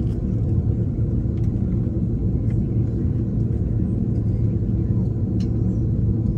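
Steady low rumble inside the cabin of an Airbus A330 as it taxis after landing, its engines running at idle and its wheels rolling on the taxiway, with a few faint clicks.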